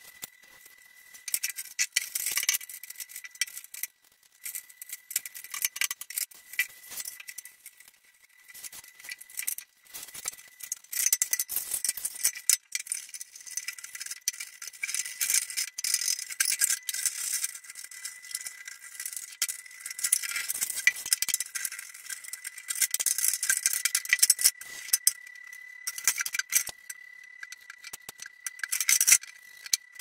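Plastic air-conditioner parts (filter, grille and panels) clattering and rattling as they are handled and washed, with stretches of hiss. A faint steady high tone runs underneath.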